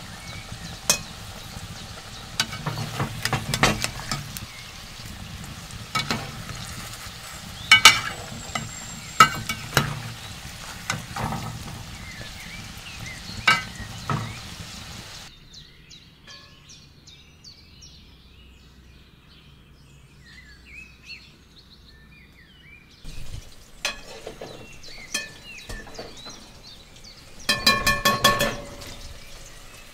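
Potato chunks frying in hot oil in an aluminium saucepan: a steady sizzle, with a metal slotted spoon clinking against the pan as they are stirred. About halfway the sizzle cuts off, leaving faint chirping, then metal pots clatter and ring near the end.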